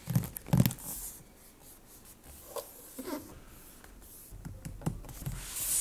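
Cardboard box being handled by hands. A few knocks on it at the start, light scraping and rubbing of the cardboard, a run of soft taps later, and a louder rubbing swish near the end as the box is slid and turned.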